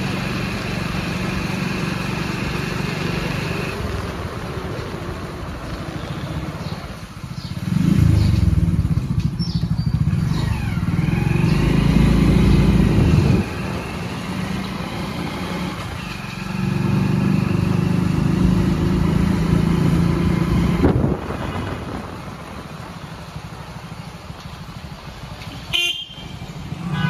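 Street traffic: motor vehicle engines running, with two louder stretches where vehicles pass close by. A short horn toot comes near the end.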